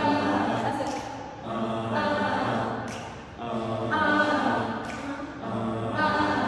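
A woman singing a cappella into a microphone, in sustained phrases about a second long that swell and fade roughly every two seconds, with no bass playing under her.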